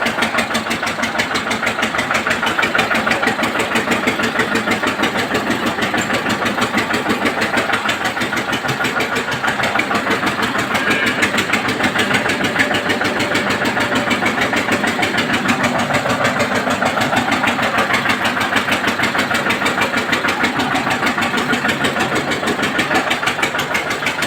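Engine of a homemade dung-clearing machine running steadily with a fast, even beat.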